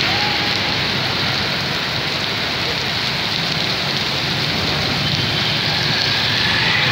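Heavy, stormy rain pouring steadily onto a paved street, a dense and even hiss of downpour.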